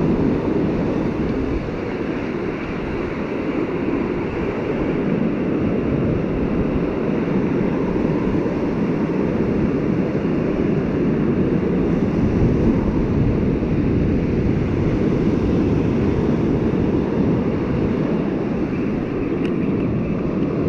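Steady rush of surf washing up the beach, mixed with wind buffeting the microphone.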